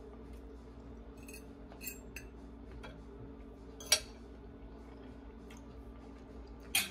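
A few sharp clicks and clinks of kitchen utensils and handling, the loudest about four seconds in and another just before the end, over a steady low hum.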